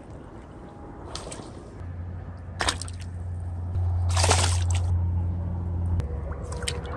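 A hooked crappie splashing at the water's surface as it is brought in, with two main splashes about a second and a half apart and a few smaller ones, over a low rumble.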